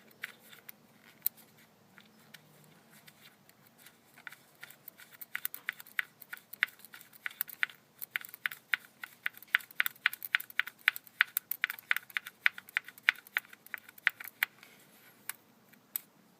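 Ratchet of a 10 mm socket wrench clicking as valve-cover bolts are backed out. The clicks are sparse at first, then come in quick runs of several a second from about four seconds in, tapering off near the end.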